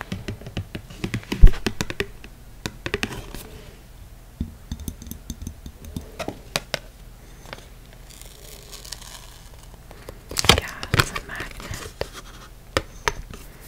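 Long fingernails tapping and scratching on stiff card packaging held close to the microphone, in irregular sharp clicks. The loudest tap comes about a second and a half in, a stretch of softer scratching about eight seconds in, and a dense run of taps about ten seconds in.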